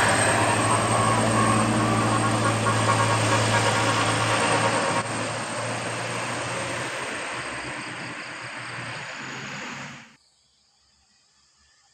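A bus going by with a steady engine hum and road noise that gradually fades, then cuts off abruptly about ten seconds in.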